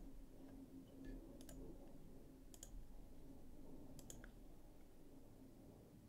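Near silence with a handful of faint, scattered computer mouse clicks over a low steady hum.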